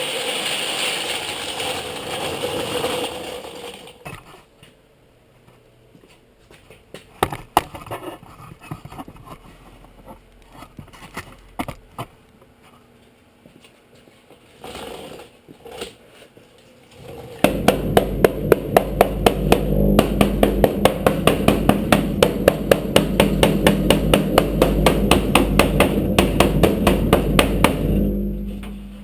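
Rapid, evenly spaced hammer blows on metal, about six a second over a steady low hum, starting about 17 seconds in and stopping near the end. Before that come a few seconds of rasping noise, then scattered knocks and clicks.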